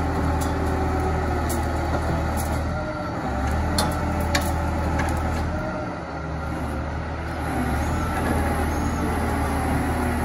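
Heavy diesel engines of a tow truck and an excavator running steadily while an overturned excavator is lifted upright. The low hum dips briefly twice, and there are a couple of short sharp clicks about four seconds in.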